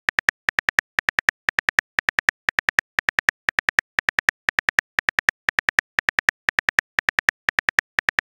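Rapid keyboard typing clicks from a phone texting-app sound effect, coming in quick, evenly spaced groups of about four clicks every half second.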